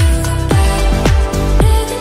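Background electronic pop music with a deep kick drum beating steadily about twice a second under sustained synth chords, without singing.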